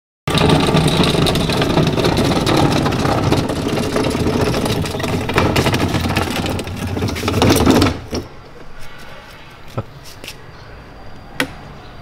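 Small caster wheels of a trolley speaker cabinet rolling across a tiled floor: a loud rattling rumble that stops about eight seconds in. A few separate knocks and clicks follow as the cabinet is set upright and handled.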